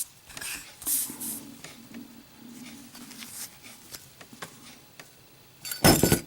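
Zippo lighter with a stainless steel case and steel insert being handled and dropped. It lands with a short, loud clatter near the end.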